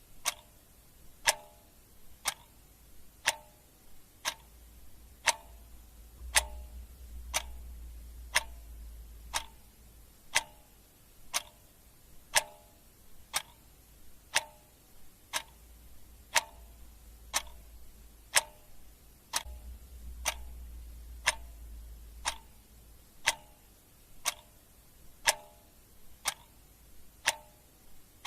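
Clock ticking steadily, about one tick a second, with alternating louder and softer ticks in a tick-tock pattern.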